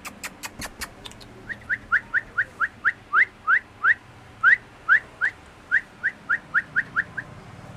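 German Shepherd puppy whining in a long series of short, high, rising squeaks, about three a second, stopping near the end. A few clicks in the first second.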